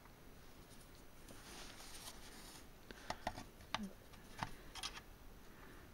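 Faint handling rustle, then a few small, sharp plastic clicks and taps as a PVC figure is fitted onto its plastic diorama base.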